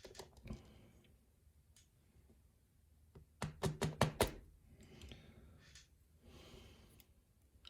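A quick run of about six sharp taps a little over three seconds in, with a few fainter clicks and soft rustling around it: small metal lock parts and tools being handled while a pin-tumbler lock is taken apart.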